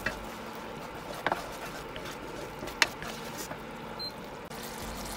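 Wooden spatula stirring a thick chilli sauce in a nonstick frying pan, giving a few light clicks against the pan over a faint steady hiss.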